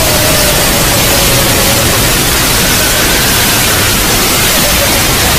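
Loud, steady static-like noise across the whole sound, with a faint wavering tone beneath it: a logo's audio wrecked by heavy G-major-style distortion.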